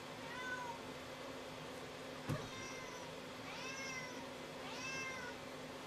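Cat giving four short meows that rise and fall in pitch. A single sharp knock comes a little after two seconds in.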